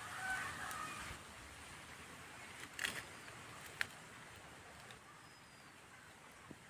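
Quiet outdoor ambience with faint hiss, a couple of short faint clicks, and a thin high whistle about five seconds in.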